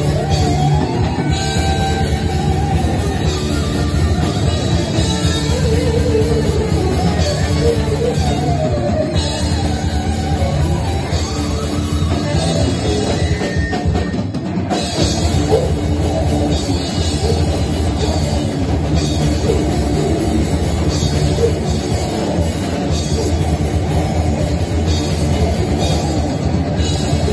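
A live heavy metal band plays loud electric guitars, bass and drum kit. About halfway through, the bass and drums briefly thin out before the full band comes back in.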